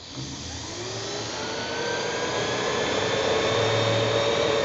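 NetGain WarP9 DC electric motor spinning up on a bench, its whine rising in pitch over the first couple of seconds, then running steadily at speed.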